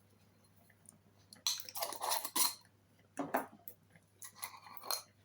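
Kitchen handling noises: three short spells of rustling and clinking, about a second apart, as seasonings are added to a cooking pot.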